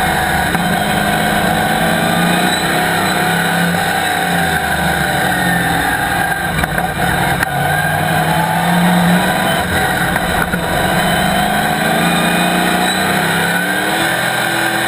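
The Chevrolet ZZ4 small-block V8 of a Camaro Cup race car, heard from inside the cockpit, running hard under racing load. It is loud, and its pitch rises and falls as the revs climb and drop.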